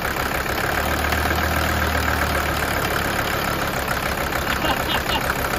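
Mercedes OM617 five-cylinder turbo diesel idling with a steady, even low pulse. Its drone swells for a couple of seconds about a second in.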